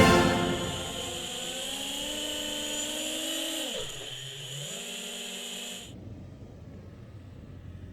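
Small electric motors whining, most likely an FPV drone's brushless motors. The pitch creeps up, drops sharply about three and a half seconds in as the throttle comes off, rises again, then cuts off suddenly near the end, leaving a faint low hum.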